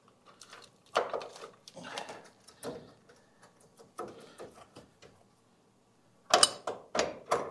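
Steel punch clanking and scraping against a rusted frame bracket as it is pried and pushed loose, in scattered sharp metal knocks. A few louder clanks come close together near the end as the bracket works free.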